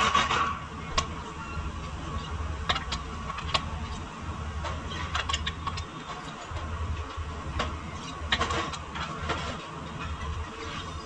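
Scattered sharp metallic clinks and knocks of tools on car suspension parts, a few seconds apart, over a steady low mechanical hum.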